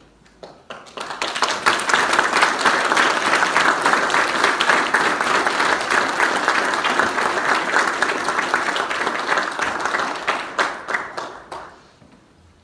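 Audience applauding. It swells up within the first second or so, holds steady, then thins to a few last scattered claps and dies away shortly before the end.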